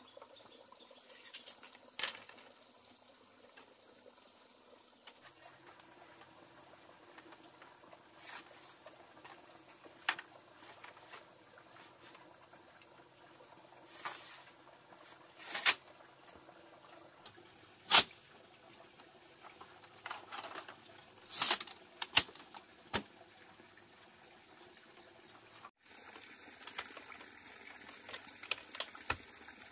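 Light knocks and clatter of split bamboo slats and poles being handled and set upright against a bamboo wall frame: sharp single knocks every few seconds, the loudest about halfway through, over a steady faint hiss.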